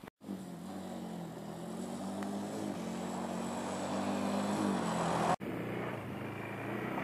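Quad bike (ATV) engine running and growing louder as it approaches, its pitch wavering slightly. The drone breaks off sharply about five seconds in and starts again at once.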